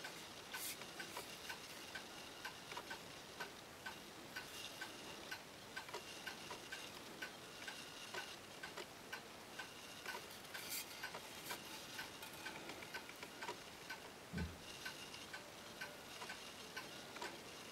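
Faint, steady, regular ticking, about two ticks a second, with a few soft handling clicks and one short low thump about three-quarters of the way through.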